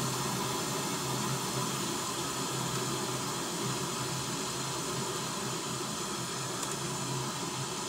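Steady test noise from Open Sound Meter's signal generator played through a loudspeaker: an even, unbroken hiss across the whole range, the reference signal for a transfer-function measurement of the speaker system.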